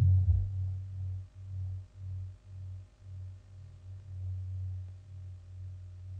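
A deep, pulsing hum rings on and slowly fades away as the song's last note dies out.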